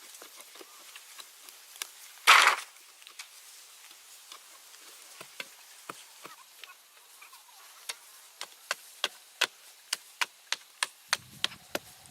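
A hand tool striking repeatedly: sharp knocks, scattered at first, then a steady run of about three a second in the second half. One louder, short rasping noise comes about two seconds in.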